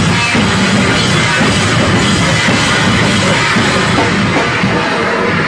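Loud, dense live noise rock from a bass-and-drums duo: heavily distorted bass guitar over fast drum-kit playing, steady and saturated.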